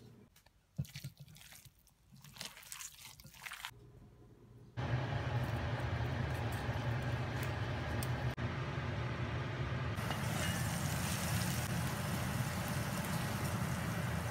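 A few soft knife taps and clicks as a block of tofu is cut. Then a steady hiss with a low hum comes in suddenly and later brightens into the sizzle of tofu mini burger patties frying in oil in a frying pan.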